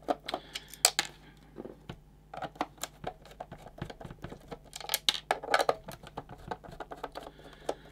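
Small screwdriver undoing the screws on the back of a plastic multimeter case: irregular light clicks and scrapes of the bit in the screw heads, with the case being handled.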